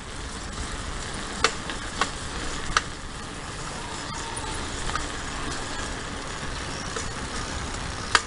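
Steady rumble of a bicycle ride over a paved path, with tyre and wind noise and a few sharp clicks or rattles in the first three seconds and once more near the end.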